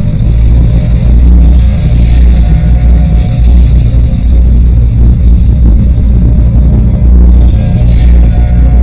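Loud title theme music for a TV series, with a heavy, steady bass throughout.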